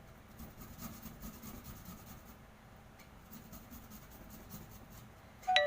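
Fresh ginger being rubbed on a hand grater: soft, uneven scraping strokes, mostly in the first couple of seconds. Near the end a sharp clink rings briefly.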